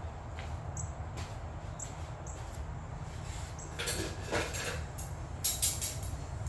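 Small metal parts and hand tools being handled on a workbench: scattered light clicks and scrapes, with a couple of louder brief clatters about four and five and a half seconds in, over a steady low hum.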